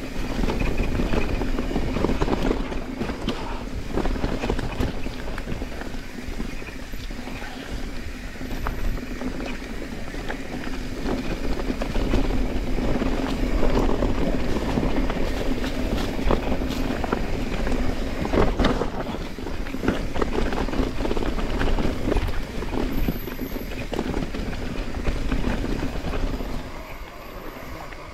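Mountain bike riding fast down a forest dirt singletrack: a steady tyre-rolling hum over a low rumble, broken by frequent knocks and rattles from the bike hitting roots and bumps. It quiets near the end as the bike slows.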